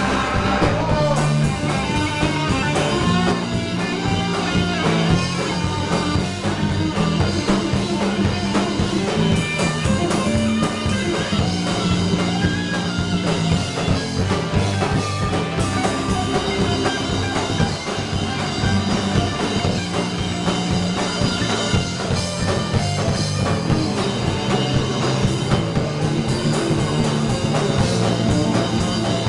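Rock band playing live: electric guitars and a drum kit, loud and continuous.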